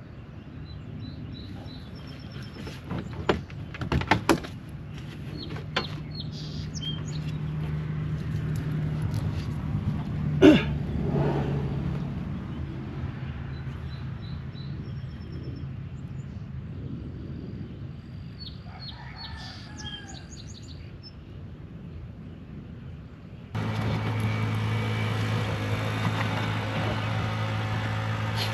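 Scattered clicks and knocks of hand work on the plastic liner and fasteners under a car's front bumper, the sharpest about three to four seconds in and again about ten seconds in. Birds chirp now and then over a steady low hum, and about three-quarters of the way through the background jumps to a louder steady rushing noise.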